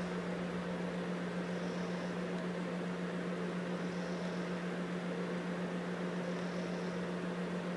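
Steady low hum over a constant hiss, with no music or speech.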